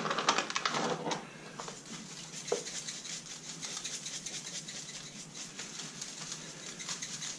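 A shaker of dry barbecue rub is shaken rapidly over a raw turkey: a fast, fine rattle of granules in the shaker and sprinkling onto the skin. Some louder handling sounds come in the first second.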